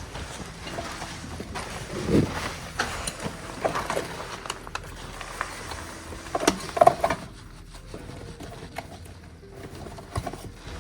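Irregular footsteps and scuffs on a rocky trail, with scattered clicks and thumps, the heaviest about two seconds in and again near the middle.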